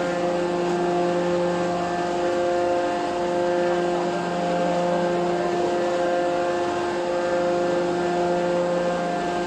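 Hydraulic press for plastic-sand tiles, its hydraulic pump unit running with a steady, unchanging hum of several pitches.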